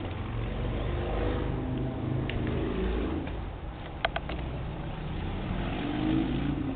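A passing motor vehicle's engine running and speeding up, over a steady low rumble. Two sharp clicks come about four seconds in.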